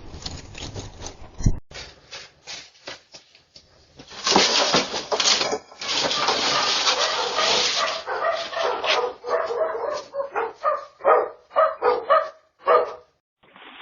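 A dog barking in short calls, about twice a second in the second half, after a few seconds of loud, even rushing noise.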